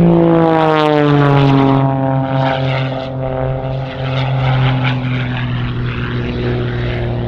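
Edge 540 aerobatic plane's propeller engine passing close by: a loud drone whose pitch drops as it goes past in the first second or two, then holds steady as it flies away.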